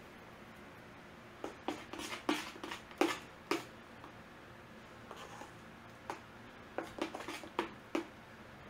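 Metal spoon stirring soup in a stainless steel mixing bowl, clinking against the sides of the bowl in quick runs of knocks, about a second and a half in and again near the end.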